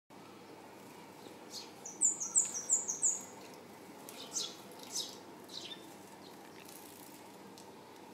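Eurasian tree sparrows bathing in a shallow dish of water: wings fluttering and water splashing, with a quick run of about seven high, thin chirps about two seconds in and a few more short splashy flurries a little later.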